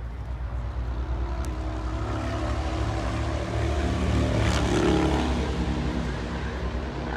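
A car engine running as the vehicle passes close by: a low engine sound that builds to its loudest about five seconds in, then fades.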